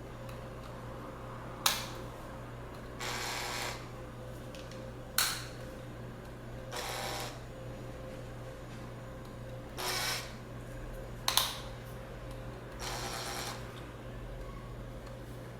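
Makita DF330D 10.8 V cordless drill/driver being handled and run: three sharp clicks and four short motor runs of under a second each, over a low steady hum.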